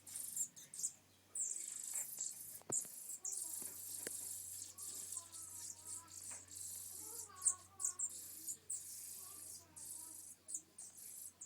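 Nestling European robins begging: a dense, very high-pitched chittering in bursts broken by short gaps, with a couple of sharp clicks.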